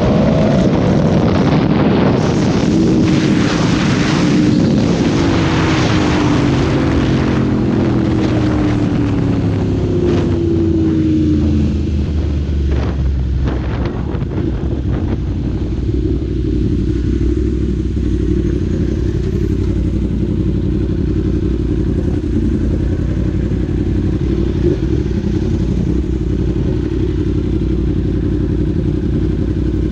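Yamaha R1 60th Anniversary's crossplane inline-four with an Austin Racing exhaust, heard from the saddle over heavy wind rush as it slows from highway speed, its engine note falling over the first dozen seconds. After that it runs steadily at low revs in slow traffic while the wind noise fades.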